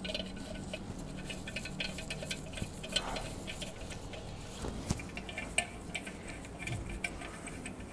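Scattered small metallic clicks and ticks of main bearing cap bolts being started by hand into an engine block and threaded in, with light handling of the parts.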